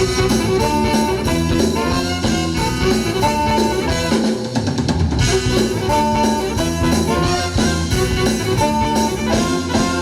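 Live rock band playing an instrumental passage: guitar over a drum kit, with a short melodic phrase that repeats every few seconds.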